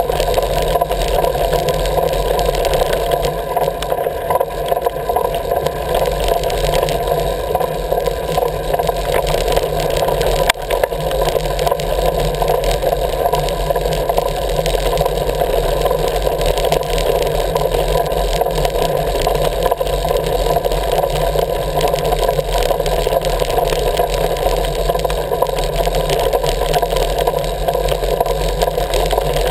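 Steady wind and road rumble on a camera riding a moving vehicle along a rough lane, with a single knock about ten seconds in.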